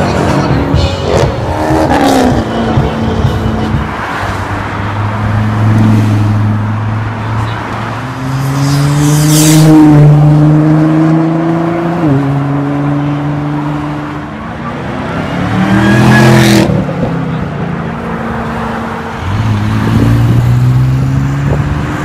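Several car engines accelerating hard one after another. The pitch climbs and drops sharply at an upshift about twelve seconds in, and falls as the cars go past, loudest around ten and sixteen seconds in.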